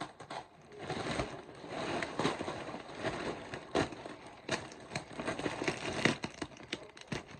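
Plastic carpet packaging crinkling and rustling as it is handled and pulled open, with many irregular sharp crackles.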